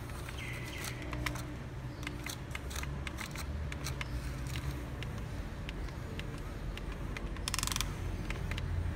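Radio-controlled long-reach CAT 320D model excavator working its arm and bucket in sand. A low steady hum carries many small clicks and scrapes, with a brief high whine about half a second in and a short rushing burst near the end.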